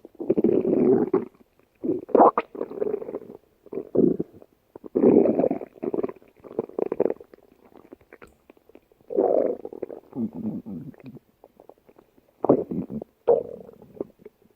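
A person's stomach growling: irregular gurgling rumbles in about six bursts, each a second or two long, with short quiet gaps between them.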